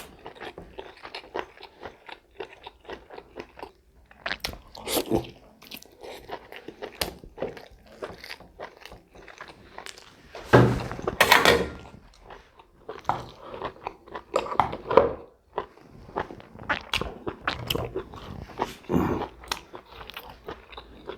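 A person chewing and biting food close to the microphone, with irregular crunches and a louder burst of biting about halfway through.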